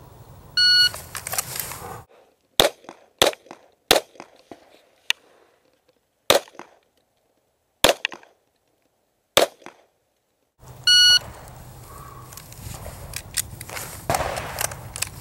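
A shot timer beeps, then a semi-automatic handgun fires about seven single shots, spaced roughly half a second to a second and a half apart. A second timer beep comes near the end, followed by lighter clattering and handling noise.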